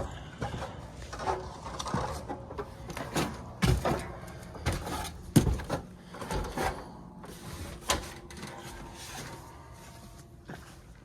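Footsteps and handling knocks as someone walks off and goes down stairs: irregular thumps about one a second that grow fainter near the end, over a faint steady hum.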